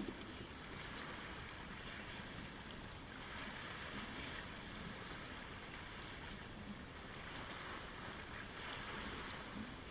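Small Lake Ontario waves washing and lapping at the shore: a steady wash of water that swells every few seconds.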